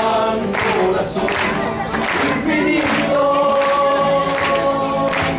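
Male choir singing in harmony to acoustic guitar, holding a long chord from about three seconds in until near the end.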